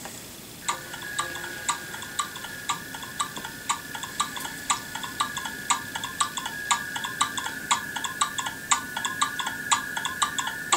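Sparse percussive dance accompaniment: a quick, even pattern of clicks like a cowbell or wood block over a steady high held tone, starting about a second in.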